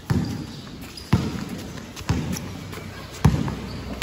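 Basketball being dribbled on a gym floor: four heavy bounces about a second apart, each echoing in the hall.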